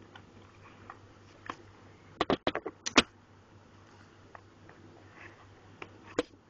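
Handling noises from unboxing a small die-cast toy car and its packaging: scattered sharp clicks and taps, with a quick cluster of louder ones a little past two seconds in and another click near the end.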